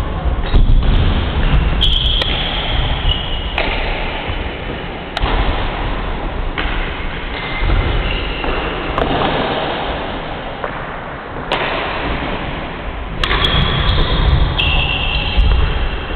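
Badminton rally on a wooden indoor court: sharp racket strikes on the shuttlecock every few seconds and high squeaks of court shoes, over a loud, steady, noisy hall background.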